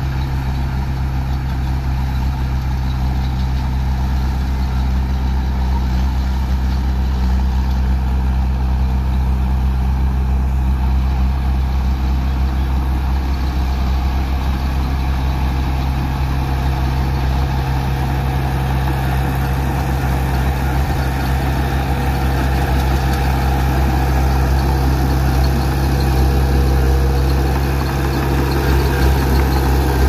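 Heavy diesel engine of earthmoving machinery running steadily at an unchanging engine speed.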